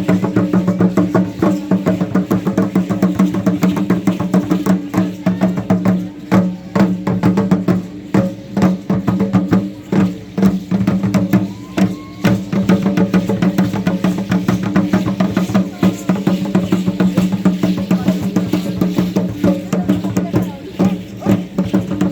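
Aztec dance music: drum beats and rapid clicking percussion over a steady low drone.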